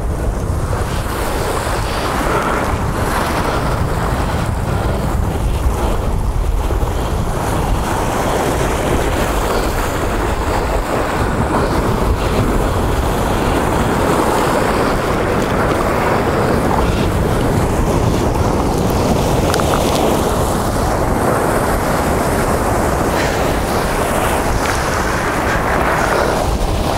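Wind buffeting the microphone over the steady wash of ocean surf, a loud continuous rushing noise with an uneven low rumble.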